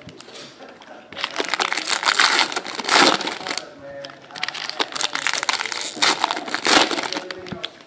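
Foil wrappers of Panini Prizm jumbo trading-card packs crinkling and crumpling as the packs are handled and opened by hand, in two spells of rustling.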